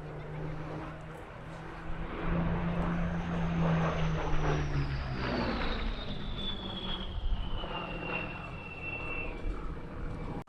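A Rolls-Royce Merlin-engined piston fighter making a flypast: the engine note swells about two seconds in, then its pitch drops as the aircraft goes by, with a high whine gliding steadily down.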